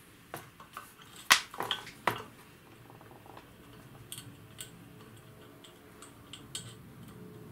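Metal clicks and knocks from the stripped-down altimeter mechanism being handled and set down on the bench: a few sharp knocks in the first two seconds, the loudest about a second in, then light scattered ticks as fingers work at its wiring and small parts.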